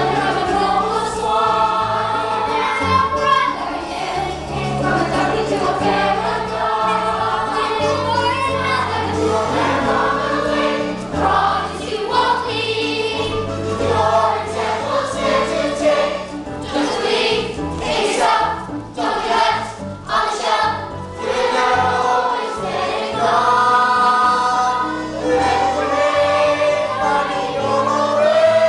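Music: a choir singing sustained notes over low accompanying tones.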